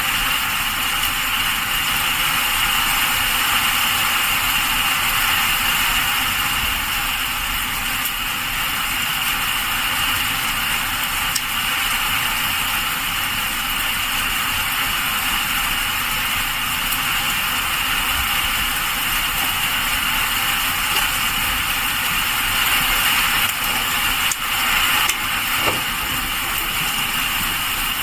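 Heavy rain falling, a dense, steady hiss.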